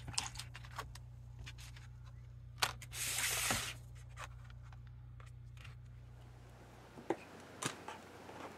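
Handling noise as a box of paint tubes and a card of painted swatches are moved about on a table: scattered clicks and knocks, with a short scraping rustle of card about three seconds in. A low hum underneath stops about seven seconds in.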